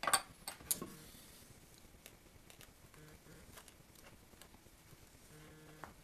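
Hand-stitching a welt onto a leather shoe: handling noise of leather, thread and tools, with a burst of scraping and clicks in the first second, then scattered faint clicks and one sharper click near the end.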